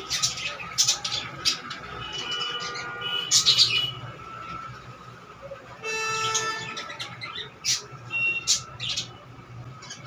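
Budgerigars chirping and chattering, with many short, sharp chirps scattered throughout and a few brief held whistles.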